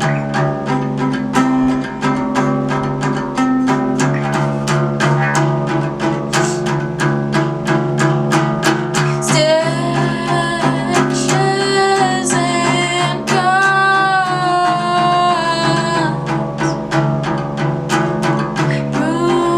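Song with a steady beat of about three strikes a second over sustained low string notes; a higher melody line comes in about halfway through and drops out near the end.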